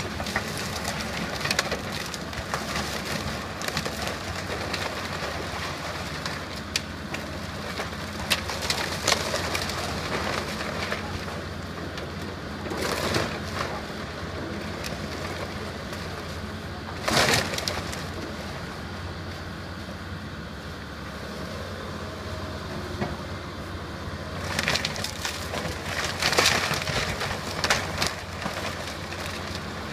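John Deere excavator's diesel engine running steadily while its bucket and thumb dig into a pile of house demolition debris, wood and sheet metal cracking and crashing. The loudest crashes come about halfway through and again near the end.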